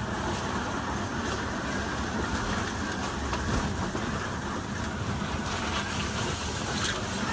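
Storm wind and rain: a steady rush of noise with some gusting.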